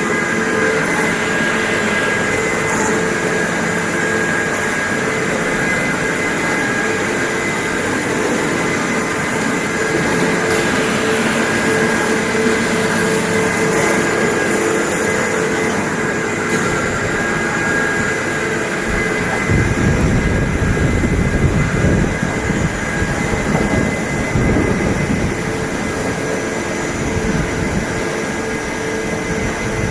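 Mori Seiki Frontier-L CNC lathe running, a steady machine whine made of several held tones. About two-thirds of the way through, a rough low rumble joins in.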